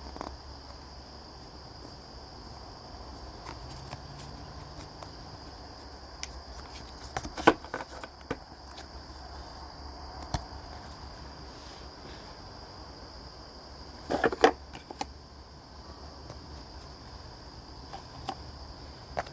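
Oracle cards and their packaging being handled: a few sharp taps and clicks, clustered about seven and fourteen seconds in. Under them runs a steady high-pitched whine and a low hum.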